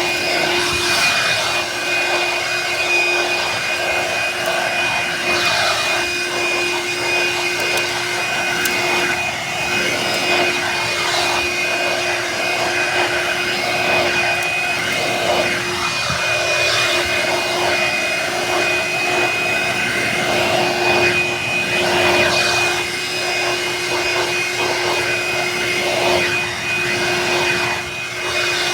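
Black & Decker Automotive Power Brush handheld vacuum running continuously with a steady high motor whine, its suction noise swelling and easing as it works over the stair steps.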